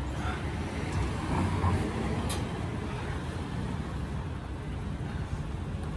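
Steady low rumble of road traffic, with a faint voice about a second and a half in and a short click a little after two seconds.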